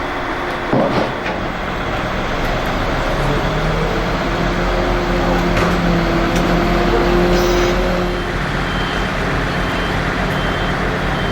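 A heavy vehicle's engine running steadily over street noise, its hum growing stronger about three seconds in. Near the end a faint repeating beep, like a reversing alarm, joins in.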